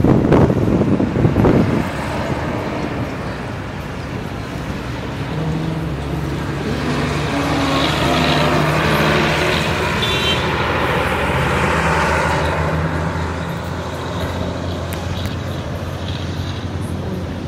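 Road traffic: a vehicle rushes past at the start, then a minibus engine runs steadily, growing louder in the middle. A brief high squeal comes about ten seconds in.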